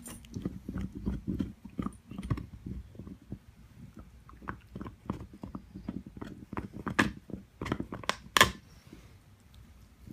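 A young dog gnawing on an antler chew: irregular scraping and clicking of teeth on hard antler, with a couple of sharper, louder cracks in the second half.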